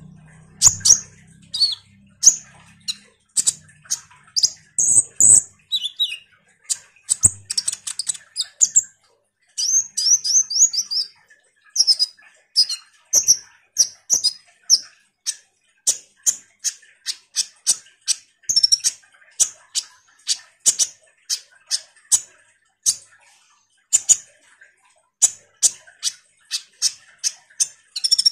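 Kolibri ninja sunbird singing a continuous chattering song: rapid, high, short chirps strung together, with quick trilled runs mixed in.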